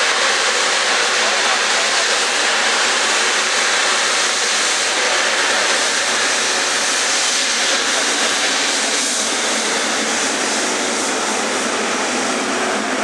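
Boeing 777-300ER's twin GE90 turbofan engines running, a loud, steady jet noise that eases slightly near the end.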